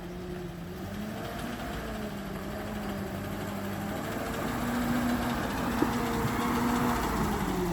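Off-road vehicle's engine running, its pitch wavering up and down as the throttle varies, growing gradually louder.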